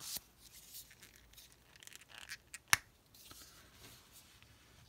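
Faint rustling of paper and a plastic highlighter being handled, with one sharp click about three-quarters of the way through as the cap is pulled off.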